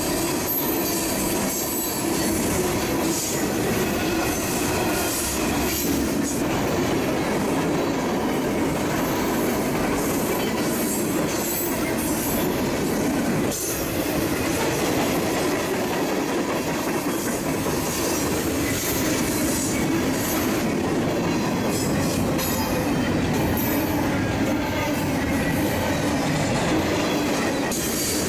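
Freight cars of a long mixed freight train, boxcars and tank cars, rolling past: a steady rumble and clatter of steel wheels on rail.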